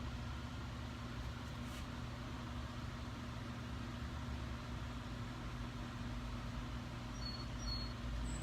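A steady low electrical-sounding hum with no distinct events, and a few faint high chirps near the end.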